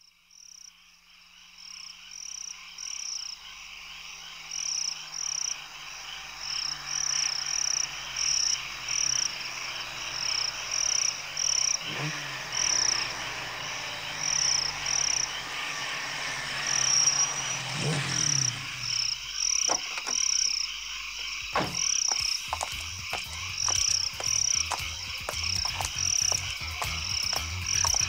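A chorus of frogs calling, a high call repeating about twice a second over a steady chirring background, fading in at the start. A couple of soft whooshes come partway through, and scattered clicks are heard in the last few seconds.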